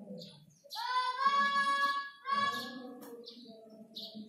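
A child's voice holding a long, high note, then a second shorter one, over faint background chatter.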